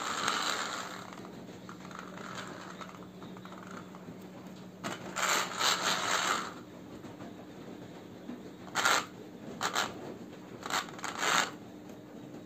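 Wired remote-control plastic toy car moving over a hard floor, its wheels rolling and scraping in short bursts: one at the start, a longer one about five seconds in, then several quick ones near the end.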